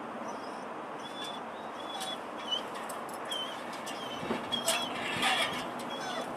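Short, high bird chirps repeating irregularly about every half second over a steady background hiss, with a few clicks and scuffs in the second half.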